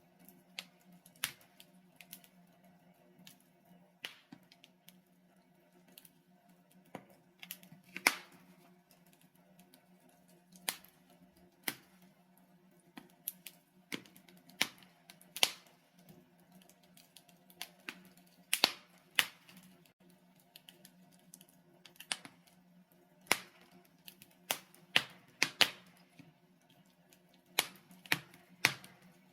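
Wood fire of burning logs in a fireplace crackling: irregular sharp pops and snaps at uneven intervals, some louder than others, over a faint steady low hum.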